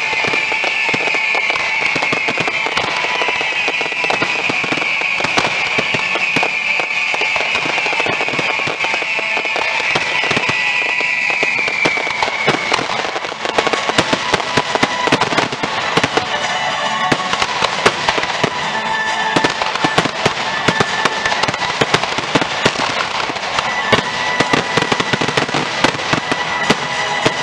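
Fireworks finale: a string of high whistles falling in pitch for the first dozen seconds, then dense crackling and rapid bangs from many shells bursting at once.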